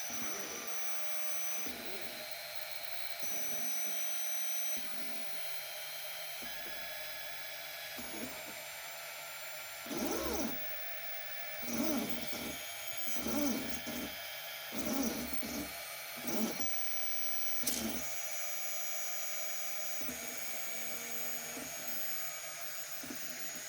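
Niryo One robotic arm's motors whining at a high pitch as it moves, the tones switching on and off every second or two. Near the middle there are about six short, louder sounds about a second and a half apart.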